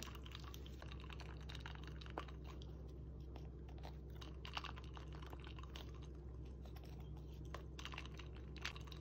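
Blue-and-gold macaw drinking water from a glass, its beak making faint, irregular clicks and taps against the glass, over a steady low hum.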